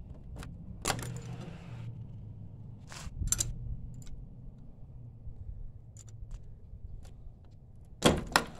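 Scattered metallic clicks and clinks of a wrench working the 10 mm and 14 mm rocker arm nuts on a Predator 224cc engine's cylinder head, the loudest pair coming near the end.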